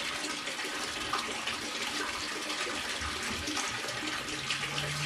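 Water from the bait tank's return pipe pouring and splashing steadily into the tank water, a constant rushing like a running tap.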